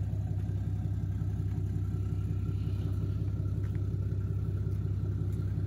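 Ram heavy-duty pickup engine running steadily at low speed with an even rumble, as the truck rolls backwards down the trailer ramps.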